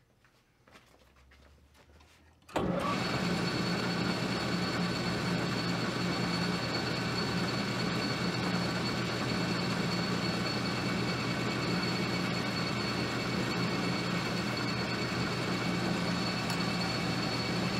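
Metal lathe switched on about two and a half seconds in, then running steadily with its four-jaw chuck spinning: a constant motor hum with a high thin whine over it.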